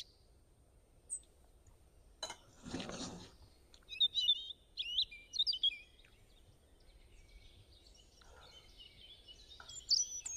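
Small birds chirping in short, quick, sliding high notes, thickest in the middle of the stretch. A single sharp click comes about two seconds in, followed by a brief rustle.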